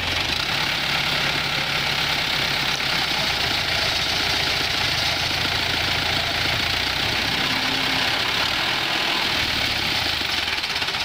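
FIAT 640 tractor's diesel engine running steadily with a knocking rattle while the tractor is stuck in mud.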